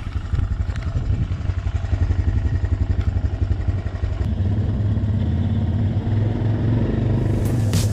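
ATV (quad bike) engine running while it is ridden over dirt: a steady, low, rapid putter of firing pulses that grows slightly louder. Music comes in just before the end.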